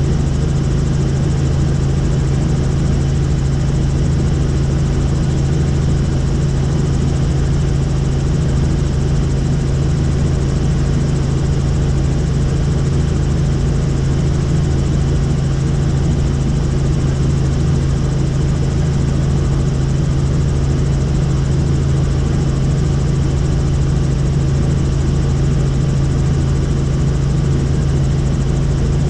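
Helicopter in flight: its engine and rotor running steadily as a loud, unchanging low drone.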